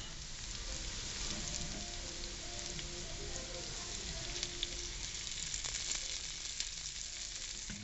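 Onion rings and garlic sizzling steadily in bacon grease and butter in a nonstick frying pan, with a few light ticks about five to six seconds in.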